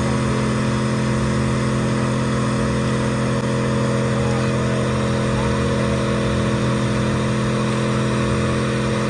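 Vehicle engine held at steady high revs, its note unchanging, with a steady hiss over it.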